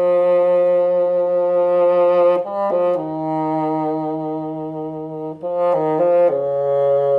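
Bassoon fitted with a Mirfa New System universal bocal, playing a slow phrase of long held low notes that step downward, with a few quick short notes about two-thirds of the way through before the last, lowest long note.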